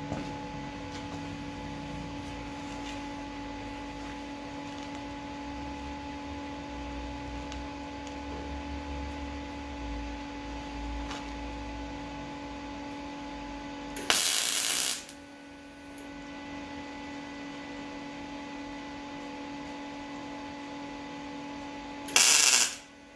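Two short MIG tack welds on a steel patch panel, each a loud burst of welding arc about a second long: the first about fourteen seconds in, the second near the end. A steady hum runs underneath.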